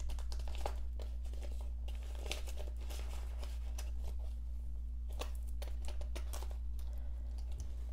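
Soft rustling and crinkling of clear plastic binder pockets and paper bills being handled, with a few scattered light clicks. A steady low hum runs underneath.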